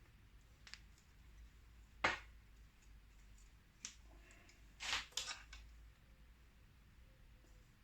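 A few sharp clicks and knocks of metal parts being worked as a bushing is forced out of a motorcycle rear shock's mounting eye. The loudest knock comes about two seconds in, and a quick cluster of clicks follows about five seconds in.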